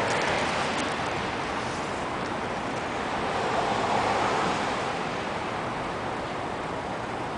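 Wind blowing steadily ahead of a storm, a rushing noise that swells in gusts, loudest about four seconds in.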